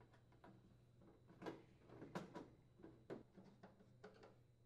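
Faint, irregular clicks and light taps of a hand screwdriver and screws against a microwave's metal cabinet as screws are driven, a dozen or so, loudest around one and a half and two seconds in.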